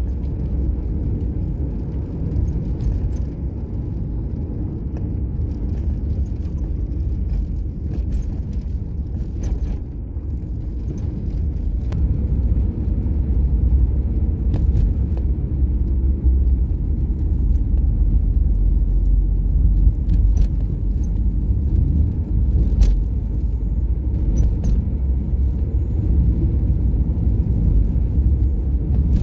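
Car driving along town streets: the steady low rumble of engine and tyres, heard from inside the cabin, with scattered short knocks and clicks. It gets a little louder about halfway through.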